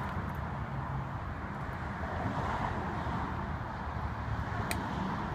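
Steady urban street background: a low rumble of distant road traffic, with one light click shortly before the end.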